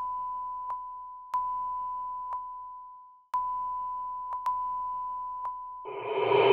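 A steady, high electronic beep tone, a signal sound effect as the message from the future cuts off, with faint clicks through it. It fades and drops out about three seconds in, then sounds again for about two and a half seconds. Near the end a louder rushing noise starts.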